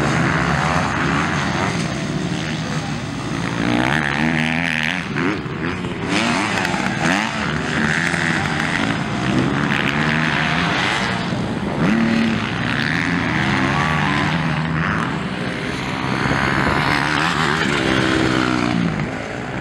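MX2-class motocross bikes racing on a dirt track, engines revving up and down over and over as riders accelerate and back off, with several bikes overlapping.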